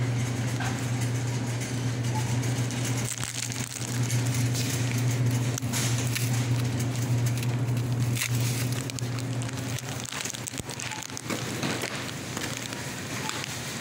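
Supermarket ambience: a steady low hum, fading out about ten seconds in, under a constant crackling rustle of phone-handling noise with scattered small clicks.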